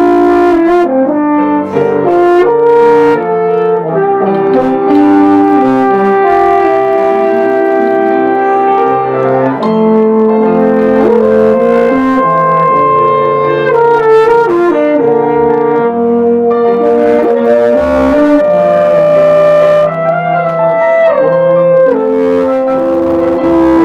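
French horn and euphonium playing a melody in harmony over piano accompaniment. The notes are held a second or two each and change in steps.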